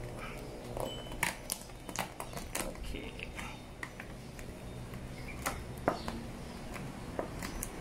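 Glossy vinyl wrap film crinkling and crackling in irregular sharp clicks as it is stretched taut and pressed down with a plastic squeegee. A steady low hum runs underneath.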